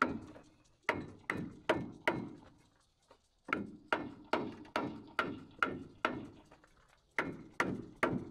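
Hammer driving nails into wooden floor joists, toenailing them in place: quick runs of sharp strikes, about two or three a second, with short pauses between runs as each nail is driven home.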